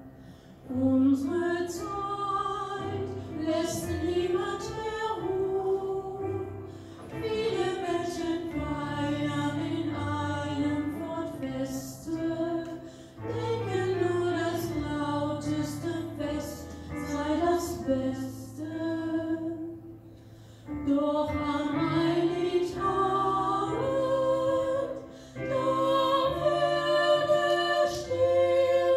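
Mixed choir of women and men singing a slow German Christmas song, with several voices held together and low sustained notes beneath, phrase by phrase with short breaks between phrases.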